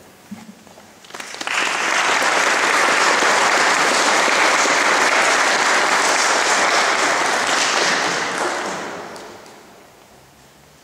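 Audience applauding: the clapping starts about a second in, holds steady for several seconds, then dies away near the end.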